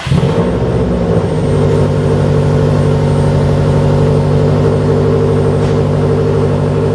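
Subaru STi's turbocharged flat-four engine starting, uneven for about the first second, then settling into a steady idle.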